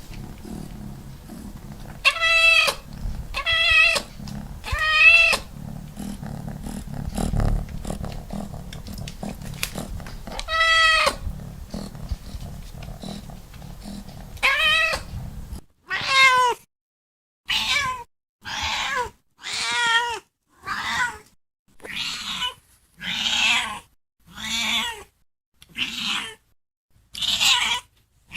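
Cat meowing: first a few drawn-out meows spaced several seconds apart over a low rumble, then, after an abrupt change, a run of about a dozen short meows at a steady pace of roughly one a second.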